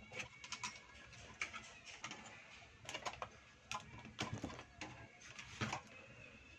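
Irregular clicks and knocks of a screwdriver and an inverter welder's heatsink-and-circuit-board assembly being handled and worked on at a workbench.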